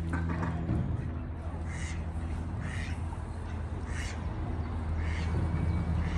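A bird giving four short, harsh calls about a second apart, over a steady low hum.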